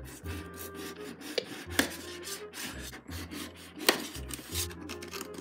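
Scissors cutting and scraping through clear plastic shrink-wrap along the edge of a cardboard box: a run of short rasping scrapes, with two sharper clicks about two and four seconds in.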